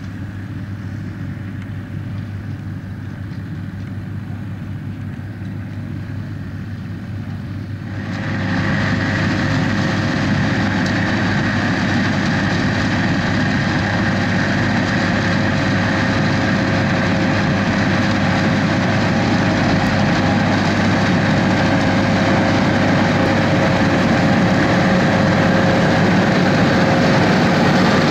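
Schlüter tractor's diesel engine running steadily during sugar beet harvesting; about eight seconds in the sound turns abruptly louder and noisier and stays that way.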